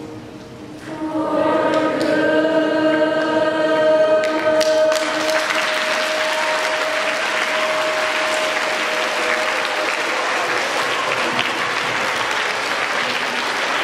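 A large group of students and teachers sings, holding one final note, and applause breaks out about five seconds in and continues steadily as the note fades.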